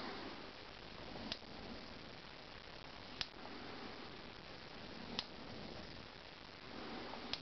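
Sharp single clicks about every two seconds over a steady faint hiss, as a rotary resistance wheel is turned step by step by hand.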